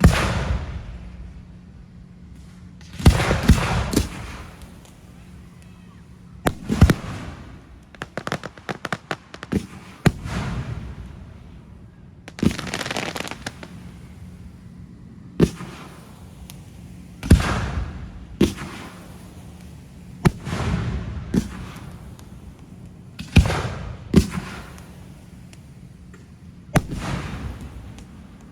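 Fireworks display: aerial fireworks going off one after another, a sharp bang every one to three seconds, each trailing off in a fading crackle and echo. A quick run of small pops comes about a third of the way in.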